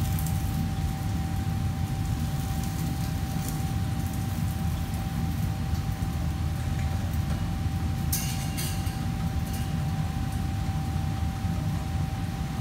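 Steady low hum of kitchen fans and machinery running, with a constant high whine over it. A few faint light clinks about eight seconds in.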